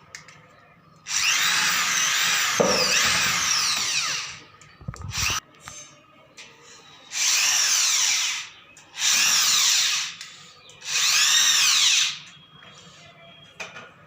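Electric power drill running in four trigger-controlled bursts, its motor whine rising and falling in pitch, as screws are driven in to fix a door closer in place. The first run is the longest. A short knock comes between the first and second runs.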